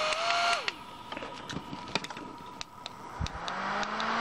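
Two USB rechargeable handheld fans switched on and off at their push buttons. The bladeless fan's motor whine steps up in pitch and winds down about half a second in. Then come several button clicks, and about three seconds in the bladed mini fan starts, its lower motor hum rising as it spins up.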